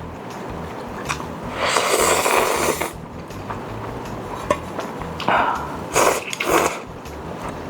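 Ramen noodles being slurped: one long slurp about two seconds in, then three short ones near the end.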